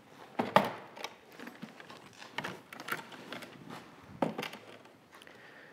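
Handling noise from the plastic control unit of a pneumatic lifting-bag set being picked up and set down on a tiled floor: scattered clicks and knocks, the sharpest about half a second in.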